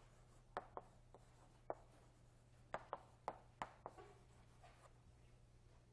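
Chalk writing on a blackboard: a run of short, faint taps and scrapes as the letters are written, about eight in the first four seconds, then it stops. A low steady hum lies underneath.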